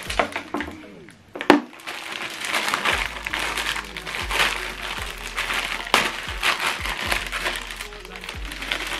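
Thin plastic bag crinkling as a remote control is pulled out of it and the wrapping is handled, with one sharp click about a second and a half in.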